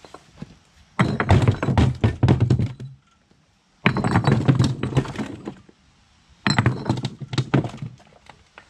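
Old bricks being tossed into a cart, clattering and clunking onto the bricks already in the load. This comes in three bursts of knocks, starting about a second in, at about four seconds and at about six and a half seconds.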